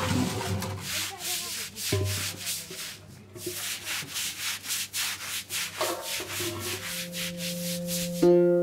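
Rhythmic scraping or rubbing strokes, about two to three a second, over sustained low notes.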